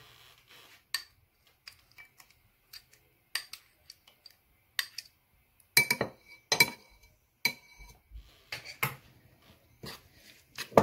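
Metal spoon clinking and scraping against a ceramic bowl while stirring a soft garlic butter spread: irregular taps, with a cluster of louder, briefly ringing clinks in the middle.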